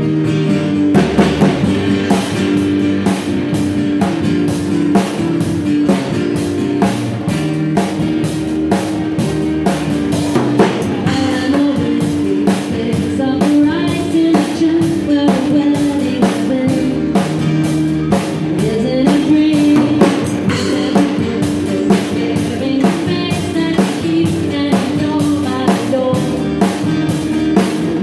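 Live band playing a song: a drum kit played with sticks comes in about a second in and keeps a steady beat, over upright bass and acoustic and electric guitars, with a woman singing.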